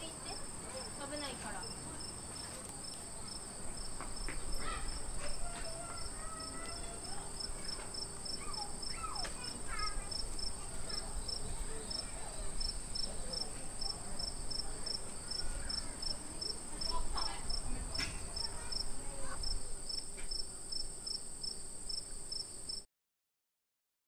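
Insects calling steadily: a continuous high buzz with a rapid, evenly spaced chirp over it, faint distant voices underneath, cutting off suddenly near the end.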